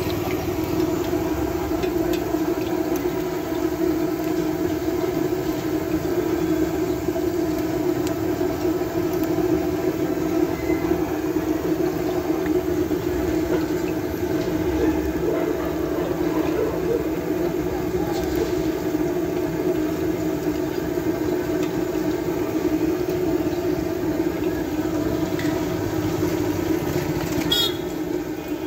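Chicken seekh kababs sizzling as they deep-fry in a wide iron karahi of hot oil, over a steady droning hum and faint voices.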